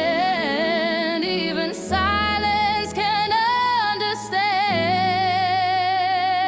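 Background music: a song with long held sung notes wavering in pitch over a steady bass line.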